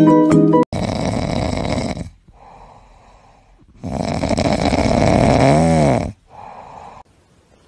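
Sleeping French bulldog puppy snoring: two long loud snores, each followed by a quieter breath.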